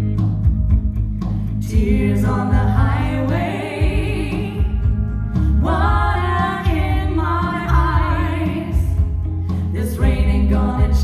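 Live music with singing: long held sung notes with vibrato over a strong, steady bass accompaniment.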